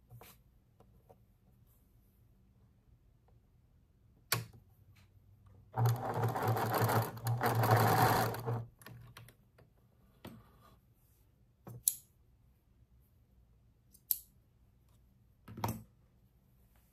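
Electric sewing machine stitching a short seam, running for about three seconds. A few single sharp clicks come before and after.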